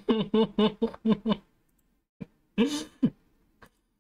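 A person's voice in a fast run of short pitched bursts for about the first second and a half. After a pause there is a click, then one longer drawn-out vocal sound near three seconds in.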